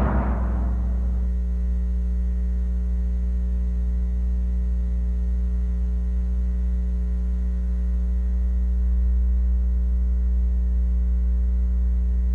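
Steady electrical mains hum with a ladder of overtones, all at one unchanging pitch; a noisier sound fades out in the first second.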